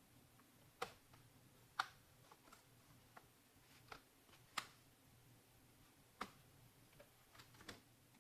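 Scattered sharp clicks and taps, about a dozen at irregular intervals, from hands and small tools working on a Lenovo LOQ laptop's plastic case and internal parts.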